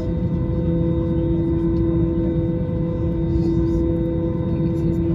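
Airbus A320 cabin hum with the engines idling on the ground: a steady low rumble carrying two constant tones.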